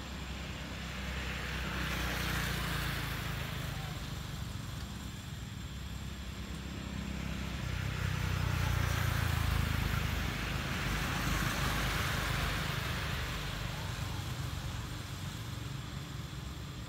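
Road traffic passing: tyre and engine noise from vehicles swelling and fading, once about two seconds in and again, louder, from about eight to twelve seconds in, over a steady low rumble.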